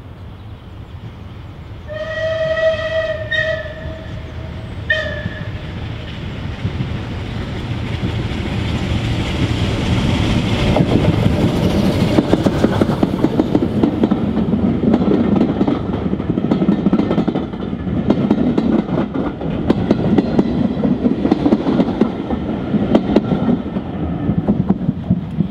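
Bulleid light pacific steam locomotive 34081 '92 Squadron' sounds its whistle, a long blast then a short one, about two seconds in. It then runs past hauling its coaches, with rhythmic exhaust beats and wheels clattering over the rail joints, growing louder as it draws level.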